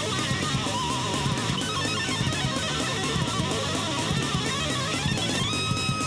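Background music led by a distorted electric guitar, with a steady driving texture and held, wavering high notes.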